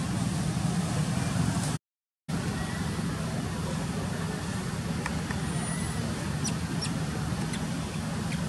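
Steady low outdoor rumble, like distant traffic, with a half-second dropout about two seconds in and a few faint high ticks later.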